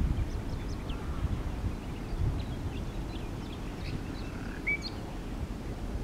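Wind rumbling on the microphone, with faint, scattered short bird chirps and whistles over it, the clearest a brief whistle about two-thirds of the way in.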